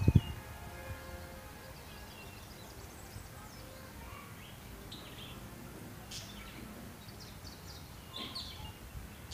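Scattered faint bird chirps over a steady outdoor hiss, with a low thump right at the start.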